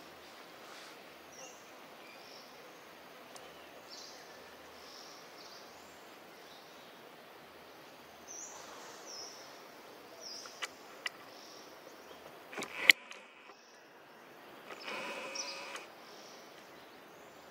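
Outdoor ambience: a steady low hiss with scattered short, high chirps. A few sharp clicks sound about two thirds of the way through, the last one the loudest sound, and a brief rustle comes about a second later.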